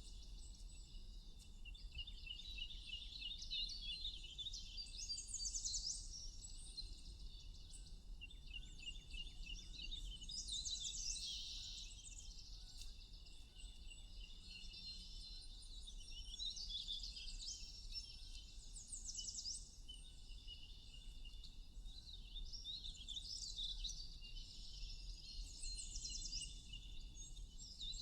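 Several songbirds chirping and singing at once, with overlapping short phrases and fast trills of repeated notes, over a faint steady low rumble.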